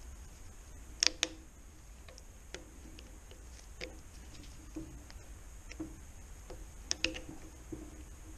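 Sharp metallic clicks and taps from hand tools working on a manual gearbox casing, spread irregularly about a second apart, with the loudest paired clicks about a second in and again about seven seconds in, over a steady low hum.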